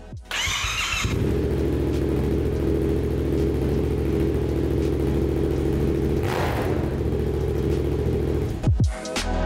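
Yamaha XSR700's parallel-twin engine cranked on the electric starter, catching within a second, then idling steadily before being switched off shortly before the end.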